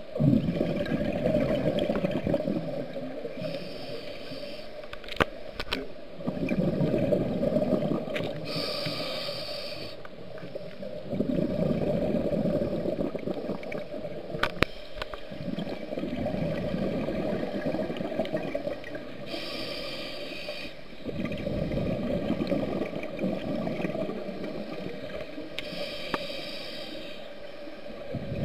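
Scuba diver breathing through a regulator, heard underwater: each inhale is a short hiss from the regulator, and each exhale is a longer low rumble of exhaust bubbles, repeating every several seconds. A couple of sharp clicks come in between.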